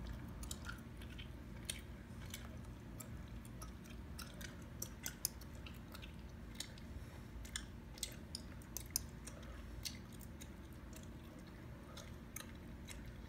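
Gum chewing close to the microphone: a string of irregular wet clicks and smacks, a few sharper than the rest, over a low steady background hum.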